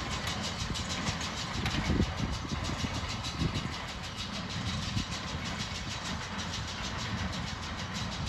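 A tractor running under load while pulling a John Deere hay baler that is picking up and baling hay. A steady engine rumble carries a fast, regular mechanical pulsing.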